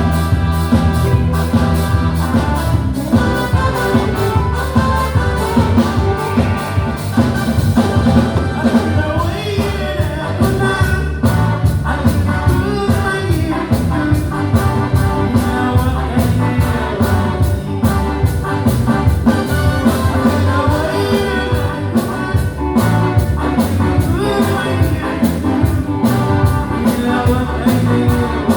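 Live band playing music with a steady beat at sound-check volume.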